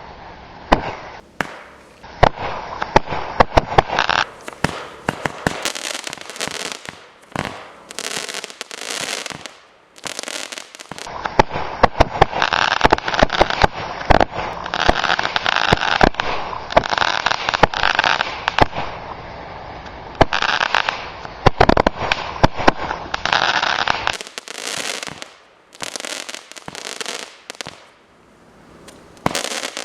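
Happy Planets consumer firework going off: a long run of sharp cracks and dense crackling, in clusters with brief lulls.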